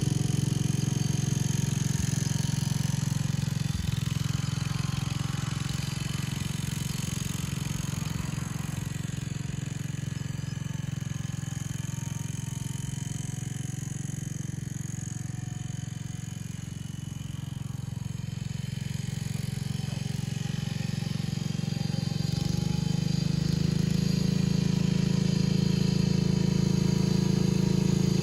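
Engine of a 1970 John Deere 140 H3 lawn tractor running steadily while the tractor is driven. The sound fades to its quietest about two-thirds of the way through, then grows louder again, and the engine note changes and firms up near the end.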